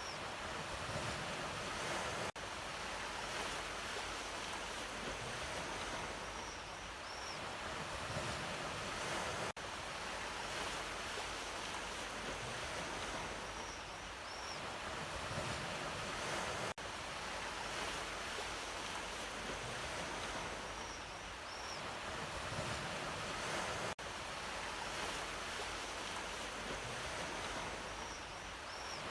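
Ocean waves washing steadily in a continuous surf. It is a short recording looped about every seven seconds, with a brief dip in level at each loop seam.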